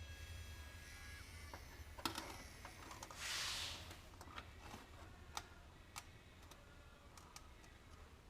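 Scattered small clicks and taps from handling a 3Doodler 3D pen and a plastic door handle during plastic welding, one sharper click about two seconds in. A faint thin whine stops about a second in, and a short soft hiss follows around three seconds in.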